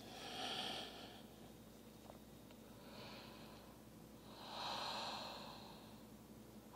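A person breathing deeply while holding a yoga pose, faint and airy: one breath at the start, a softer one about three seconds in, and a longer one near the end.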